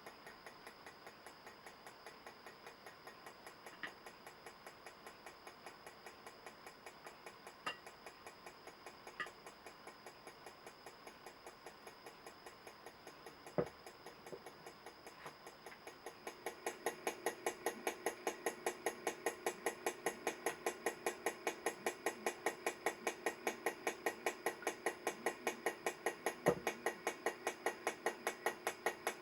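Freshly overhauled Bulova ladies' mechanical wristwatch ticking with a rapid, even beat. The ticks grow much louder a little past halfway, and a few single sharper knocks fall among them.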